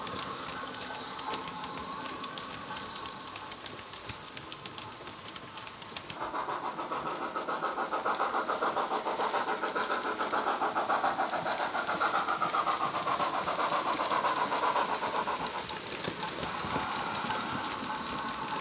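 Sound-equipped Hornby Princess Coronation Class model steam locomotive playing SWD's Princess Coronation DCC steam sound through a small flat speaker in the tender: the steady beat of exhaust chuffs. It is faint at first. From about six seconds in it grows into a louder, quick, even chuffing, which eases off a little near the end.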